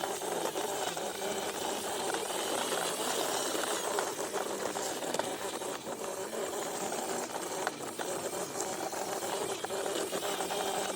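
Small electric motor driving a homemade toy vehicle's gears, running steadily with a fast rattling clatter.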